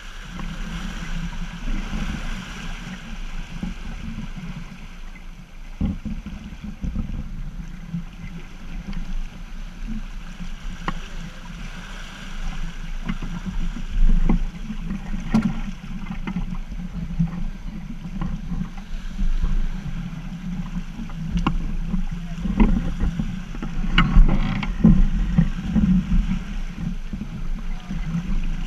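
Wind buffeting the microphone over the rush of water along a Half Ton racing sailboat's hull under sail, with scattered clicks and knocks from deck gear and winches.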